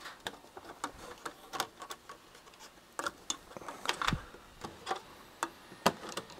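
Irregular light clicks and taps as the Keithley 2015 multimeter's loose plastic front panel and its wiring are handled and shifted, with one duller knock about four seconds in.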